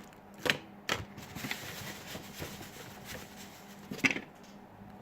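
A few scattered small, sharp clicks and knocks of hard objects being moved about while someone rummages for a small screwdriver, the loudest near the end.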